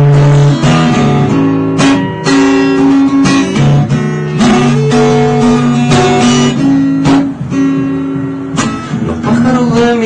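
Acoustic guitar strummed in chords with some picked notes, an instrumental passage with no singing.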